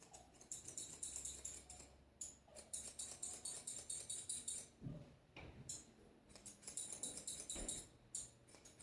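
Steel grooming shears snipping rapidly in runs of quick metallic clicks, with short pauses between the runs, as hair is trimmed close to the microphone.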